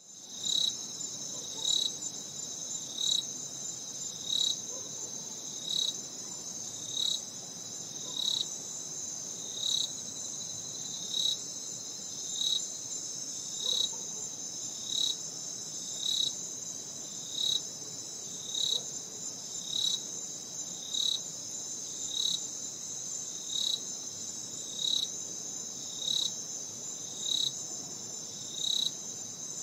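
Night chorus of insects: a steady high-pitched trilling, with a louder, slightly lower chirp repeating evenly about three times every four seconds.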